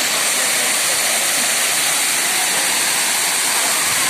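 Waterfall: water falling and splashing with a steady, loud rushing noise.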